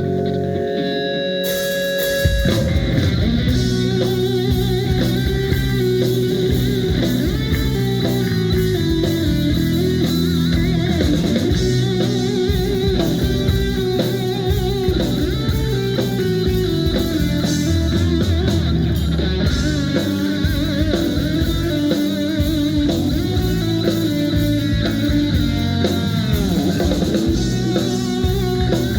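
Rock band playing live, electric guitar over a drum kit. Held notes ring for about the first two seconds, then the full band comes in at a steady rhythm.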